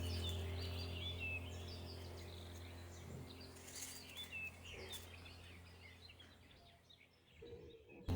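Small birds chirping over a steady low hum, the whole gradually fading out.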